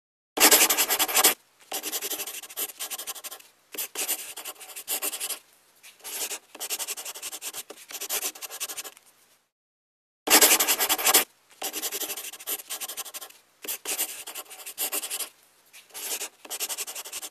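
Scribbling on paper: quick scratchy strokes in bursts of one to two seconds with short pauses between. A louder burst comes near the start and again about ten seconds in, after a brief silence.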